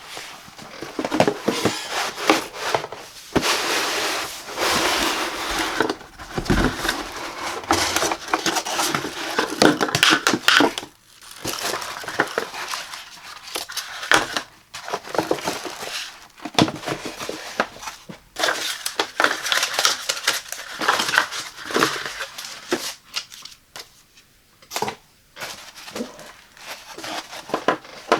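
Packaging being handled during an unboxing: irregular crinkling and rustling of packing material, with scraping and sharp clicks and knocks, in bouts broken by brief pauses.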